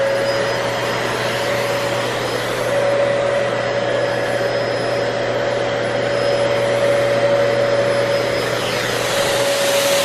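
Vacuum cleaner running steadily, a high motor whine over rushing air, as it sucks through a nylon tight stretched over the end of its wand.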